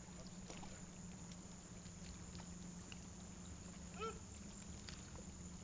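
Faint open-water ambience with a steady low hum, a few faint ticks, and one short, distant pitched call about four seconds in.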